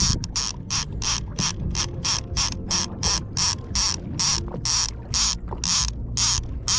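A line-counter trolling reel's clicker ratcheting as line is let out, about three clicks a second, spacing out toward the end and then stopping.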